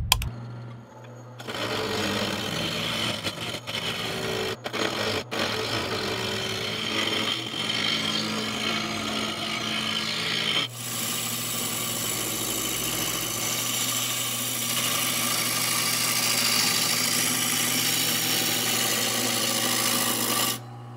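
A Jet mini wood lathe is switched on and its motor hums steadily. A hand-held turning tool cuts into the spinning glued-up wooden rolling pin blank with a rough, uneven scraping. About halfway the cutting noise changes to a denser, even hiss.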